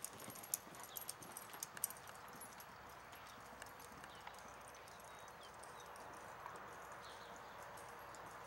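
A horse's hoofbeats on arena sand at a slow gait. A few sharp clicks come in the first couple of seconds, then only a faint steady hiss.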